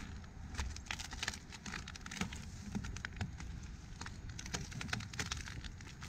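Footsteps crunching in snow, about two a second, over a steady low rumble.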